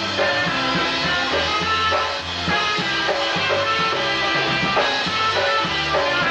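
Live polka band playing an instrumental passage with a steady, bouncing beat.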